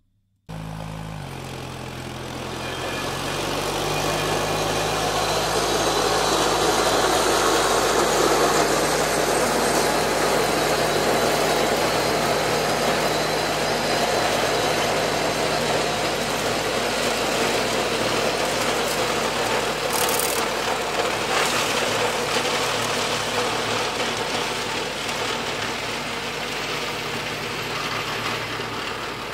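Simplicity 4041 Power Max garden tractor's engine running steadily under load while its rear-PTO Mott flail mower spins and shreds overgrown raspberry bushes, a loud rushing chop that swells a few seconds in. A couple of sharp cracks come about two-thirds of the way through as the flails strike something hard.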